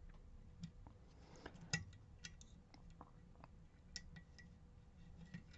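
Faint, irregular clicks and ticks of lock-picking tools working the wafers inside a Miwa DS lock.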